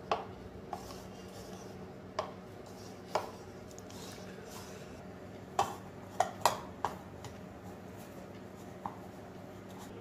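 Irregular light clicks and knocks of fingers and the plastic bowl as hands press and knead crushed Oreo mixture, with a quick cluster of knocks about six seconds in, over a steady low hum.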